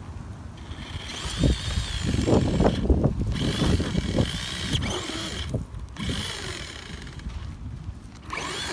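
Electric motor of an ECX off-road RC truck whining in three throttle bursts, rising and falling in pitch, with short gaps about three and five and a half seconds in. Its tyres churn and crunch through gravel ballast as it climbs over a railroad rail.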